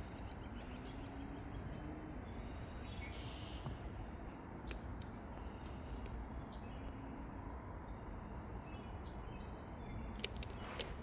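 Small songbirds giving short, high chirps here and there, faintly, over a steady low background noise.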